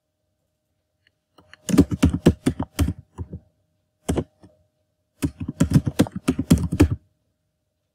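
Typing on a computer keyboard: a quick run of keystrokes, a brief pause with a couple more, then another quick run, the typing stopping about a second before the end.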